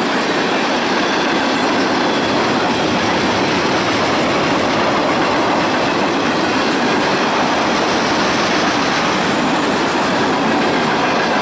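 Freight train cars (covered hoppers, tank cars and boxcars) rolling past close by: a steady, loud noise of steel wheels running on the rails.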